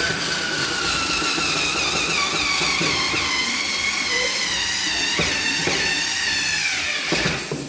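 Cordless drill motor running for about seven seconds, its whine wavering and dropping slightly in pitch toward the end, with a few knocks in the second half, then stopping abruptly.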